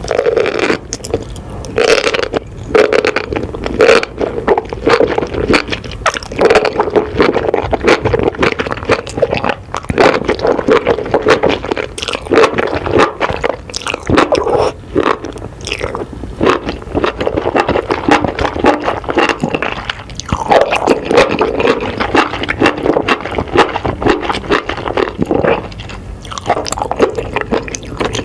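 Close-up scraping and crackling: a dense, continuous run of small clicks and rubbing noises, with brief pauses around 2, 10, 20 and 26 seconds in.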